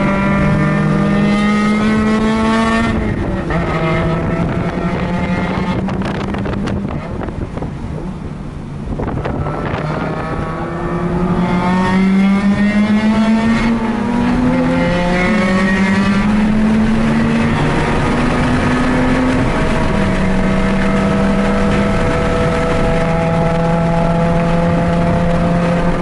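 Mazda RX-8's two-rotor rotary engine at full throttle on a track lap: the pitch rises and drops back at each upshift, eases off for a few seconds around a corner, then climbs hard again and holds steady high revs. Wind noise runs underneath.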